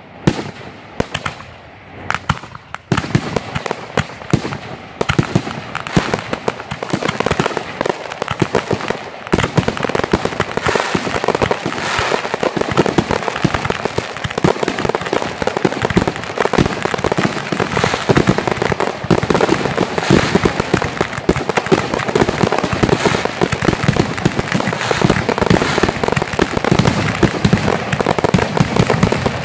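Aerial fireworks finale bursting overhead. A few separate bangs come first, then from about three seconds in a dense, continuous barrage of reports and crackle, thickening further about nine seconds in.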